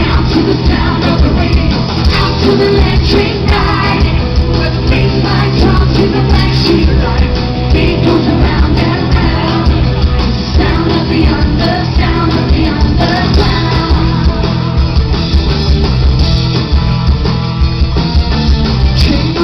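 Loud pop-rock music with singing, played continuously by a live stage show.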